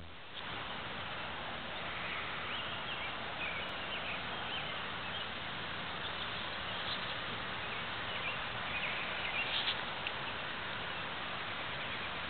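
Outdoor ambience: a steady background hiss with a few faint, short bird chirps scattered through it.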